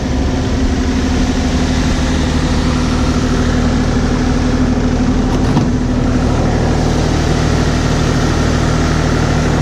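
Kubota 040 compact excavator's diesel engine running steadily, with one faint brief knock about five and a half seconds in.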